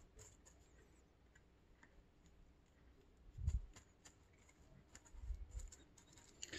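Faint crackling and clicking of moss being stuffed and pressed by hand into a plant pot, with soft dull thumps about three and a half and five seconds in.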